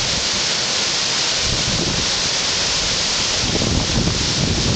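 Whitewater rapids rushing steadily, with a low buffeting rumble coming in over the rush about three and a half seconds in.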